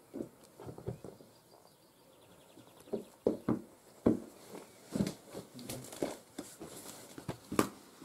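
Irregular knocks, scrapes and rustles of someone moving about and handling things close to the microphone, among twigs and loose stone. A faint quick run of high ticks comes about two and a half seconds in.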